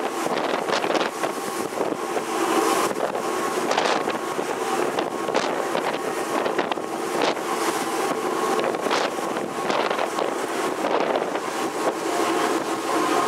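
Wind buffeting the microphone in gusts over the rush of white water churned along a moving ferry's hull, with a steady machinery hum from the ship underneath that grows stronger near the end.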